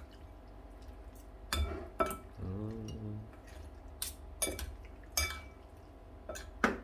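A metal fork and spoon clinking and scraping against a ceramic bowl while a wet mix of minced pork and sliced pork skin is tossed. There are about seven sharp clinks at irregular intervals, with softer stirring between them.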